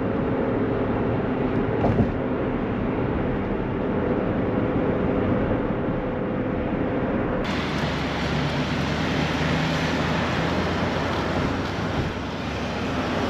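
A car on the move: steady engine and road noise with a low hum. About seven seconds in the sound changes abruptly to a brighter, hissier stretch of the same kind of noise.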